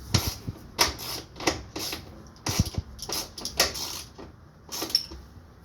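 Irregular sharp metallic clicks and taps, about two a second, as hand tools work loose the last fastener holding a Nissan Sentra's front strut assembly.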